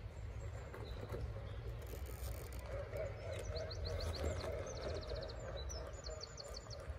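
RC rock crawler's electric motor and gears whining steadily as it creeps up a rock ledge, the whine strongest in the second half. Birds chirp in quick high trills over a low wind rumble on the microphone.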